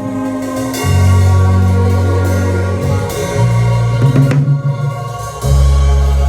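A band playing through its sound check, with drum kit hits over steady pitched chords and long, low bass notes that change every second or two.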